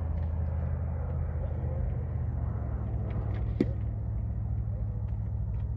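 A steady low engine-like rumble runs on throughout, with one brief sharp click about three and a half seconds in.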